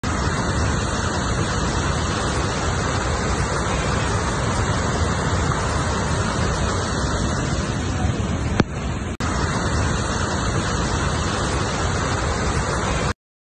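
Steady rush of floodwater, an even noise with no pitch, broken by a brief click about eight and a half seconds in and a short gap just after.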